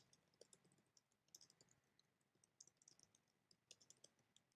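Faint typing on a computer keyboard: scattered quiet key clicks at an uneven pace.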